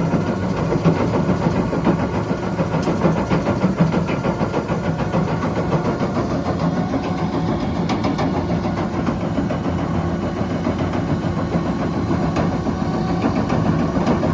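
Hitachi Zaxis 330 excavator's diesel engine running steadily, with the clatter of a crusher bucket at work.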